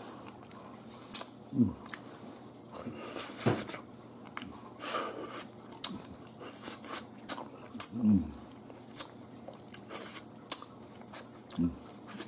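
A person eating noodle soup close to the microphone: chewing and lip-smacking clicks all through, with three short, low, falling hums.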